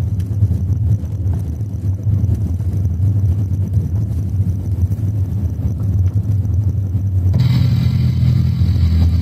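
Car driving slowly on a gravel road, a steady low rumble of engine and tyres heard from inside the cabin. About seven seconds in, music with guitar starts up over it.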